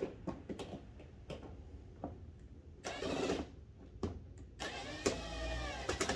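Cordless drill driving a bolt into the steering column of a plastic ride-on toy: its motor whirs in a short run about three seconds in and a longer one near the end, with light clicks and knocks of handling between.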